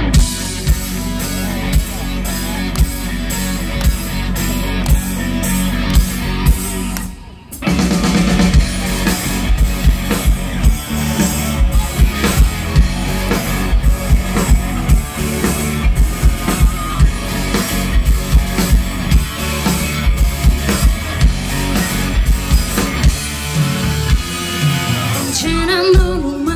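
Live rock band playing an instrumental passage on drum kit, electric guitar and bass guitar. The band cuts out for a moment about seven seconds in, then crashes back in, and a female singer's voice comes in near the end.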